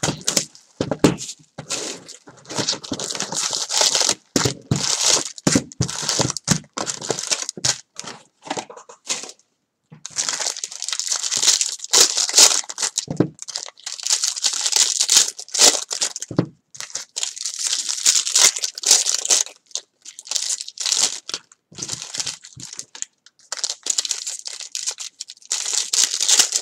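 Cellophane shrink wrap torn off a box of 2018 Bowman baseball cards, then the foil card packs ripped open and crinkled in the hands, in irregular rustling bursts with short pauses.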